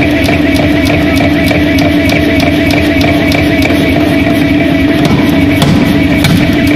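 A 150 kg (330 lb) pneumatic forging hammer striking a white-hot steel billet in rapid, evenly spaced blows, several a second, very loud. A steady machine hum runs underneath.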